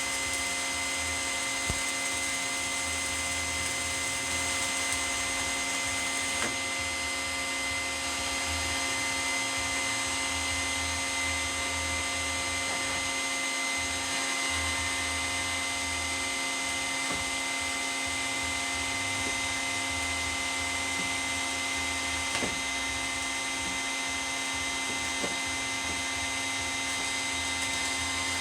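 Wet/dry shop vac running steadily as a welding fume extractor, a constant motor whine with a high steady tone, with an uneven low hum that comes and goes underneath.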